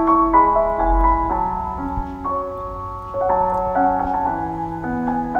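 Background piano music: a slow, gentle melody of held notes and chords.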